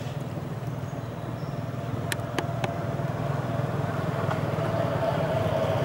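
A motor vehicle's engine running steadily, a low rumble with a steady hum above it that grows a little louder toward the end. Three sharp clicks sound about two seconds in.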